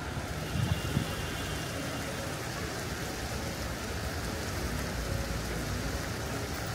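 Steady outdoor city ambience: a continuous hiss over a low rumble, with a couple of brief low bumps about a second in.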